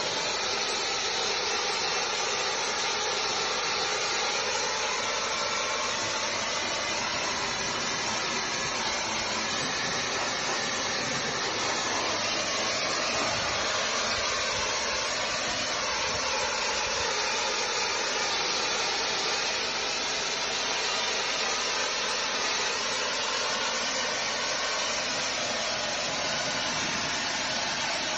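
Steady hiss of a brick-cleaning jet spraying, with a machine running underneath.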